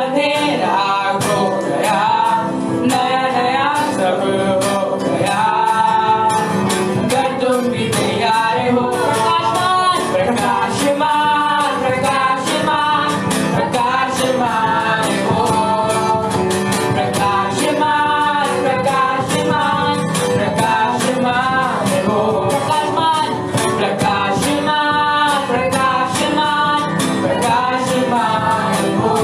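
Live worship music: a man and woman singing a song with band accompaniment, guitar and a steady beat, in a rough live-stream recording.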